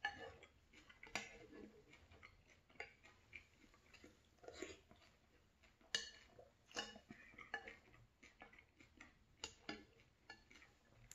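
Faint, scattered clicks of a metal spoon against a glass cereal bowl, with a few short sips of the leftover milk.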